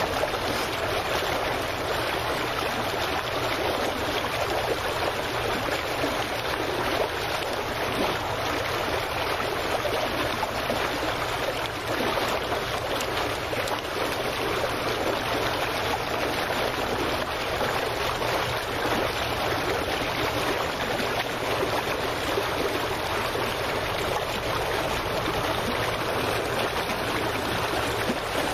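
Steady wash of water at the edge of a dock, an even rushing hiss with no pauses, and a faint low hum beneath it.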